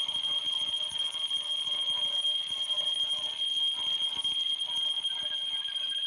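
Electronic drone from a soundtrack: a steady high-pitched tone held over a soft hiss of noise, with a second, lower tone and some wavering higher notes coming in about five seconds in.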